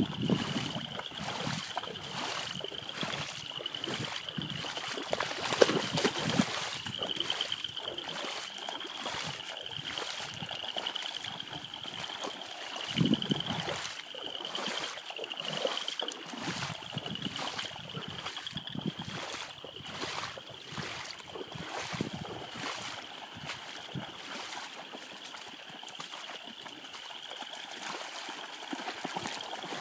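Young dogs splashing and wading through shallow marsh water, with irregular splashes, a few louder ones. A steady high-pitched wavering trill runs underneath.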